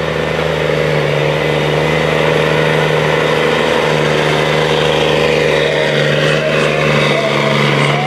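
DAF truck's diesel engine running hard under heavy load as it drags a pulling sled, loud and steady at a constant pitch, blowing black smoke.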